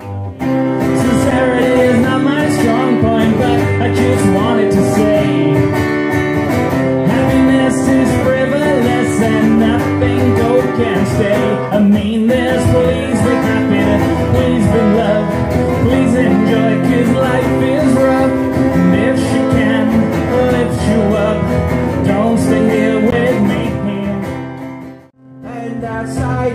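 Live acoustic guitar played with a man singing along. About 25 s in it stops abruptly, and another acoustic guitar song with a male voice begins.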